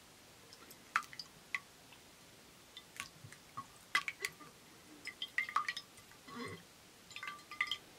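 Water dripping and splashing lightly as a hand moves in and lifts out of a bowl of water: scattered small drips and plinks, a few of them sharp, coming more often in the second half.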